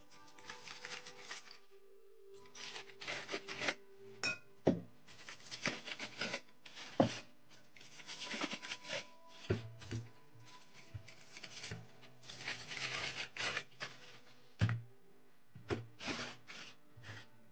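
Aluminium foil crinkling and tearing in repeated bursts as it is peeled off steel cups, with a few sharp knocks of metal on metal.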